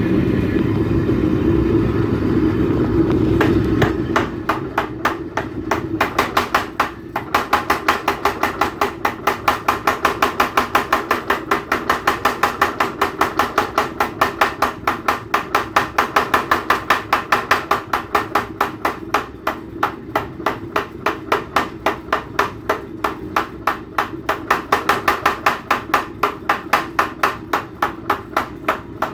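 Power hammer pounding hot steel in a fast, even rhythm of several blows a second, drawing the bar out quickly. A steady hum runs underneath, and the blows start about four seconds in, with a short break around seven seconds.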